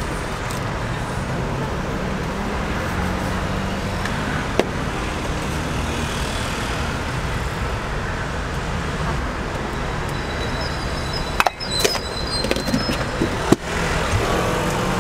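Steady street and traffic noise, with a single knock a few seconds in. A cluster of sharper knocks and scrapes about three-quarters of the way through as ice cream is scooped from a tub onto a crepe.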